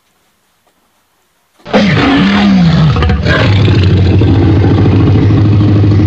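Loud dinosaur roar sound effect, starting suddenly about a second and a half in after near silence, with a low steady rumble under it.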